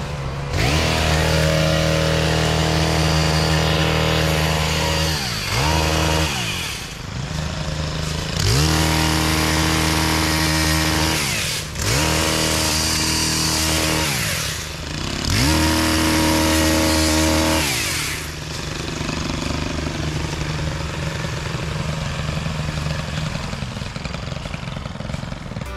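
Two-stroke gas pole saw running at full throttle through four long cuts, dropping back with quick falls and rises in pitch between them, then idling for the last several seconds.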